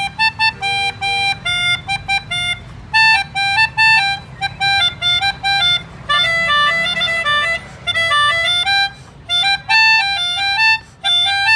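Two pianikas (melodicas) playing a duet of the 'telolet' bus-horn tune, mixing short detached notes with some held ones. For a stretch in the middle the two parts are heard moving against each other.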